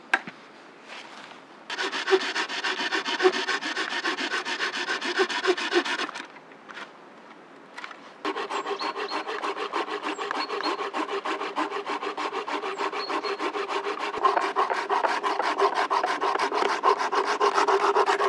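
A hand tool worked rapidly back and forth on a wooden stick: fast, even scraping strokes in two runs, one of about four seconds and a longer one starting about eight seconds in.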